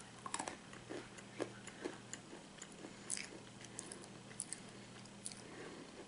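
Faint, irregular crunching and clicking of someone chewing toffee-coated praline nuts, pear-flavoured praline pecans and cashews.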